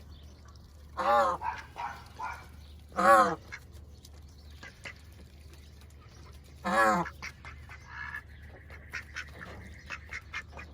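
A farm bird honking: three loud, wavering honks spread over several seconds, with a few shorter, softer calls between them.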